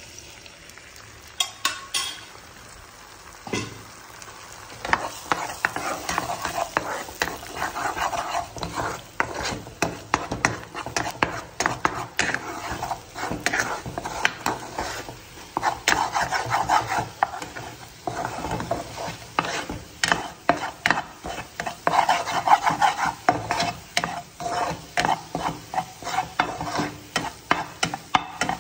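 Eggs being scrambled in a frying pan: a steady sizzle with a spatula scraping and tapping against the pan in quick, uneven strokes. The first few seconds are quieter, with only a few light clicks, before the sizzle and stirring set in about five seconds in.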